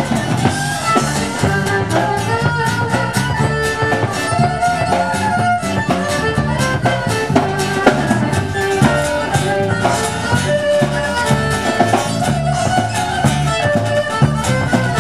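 Live country band playing an instrumental break without singing: fiddle over guitar and a steady drum-kit beat.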